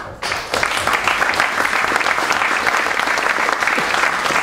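Audience applauding, building up within the first half-second and then holding steady.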